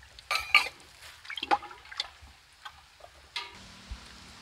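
Steel ladles clinking and knocking against stainless steel serving pots, bowls and plates as curry is ladled out, a handful of sharp clinks with some liquid pouring.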